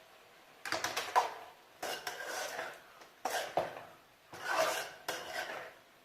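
A spoon scraping and stirring in a cooking pan, in about five strokes roughly a second apart.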